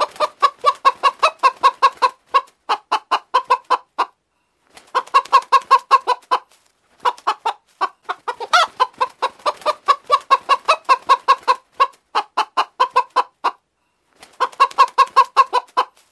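A hen clucking in rapid runs of short clucks, about six a second, broken by brief pauses between bouts, with one louder, higher-pitched cluck about eight and a half seconds in.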